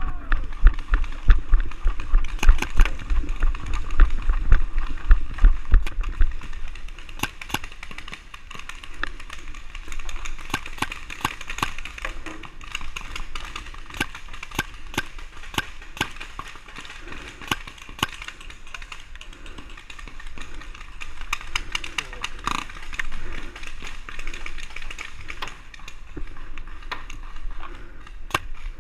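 Paintball markers firing in scattered, irregular shots, some close and sharp and others further off. Heavy low thuds, the loudest sounds, come during the first six seconds, then stop.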